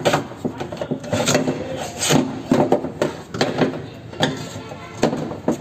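Irregular metal clunks, clicks and scrapes as a power window regulator assembly is worked into place inside a car door's inner panel.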